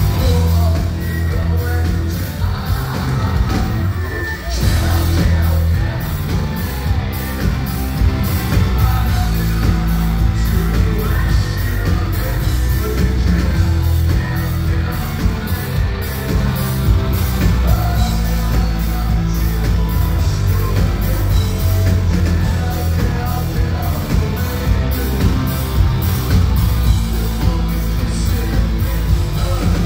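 Live rock band playing loud, with a singer's voice over a steady drum beat of about two strokes a second and heavy booming bass, heard from within the crowd.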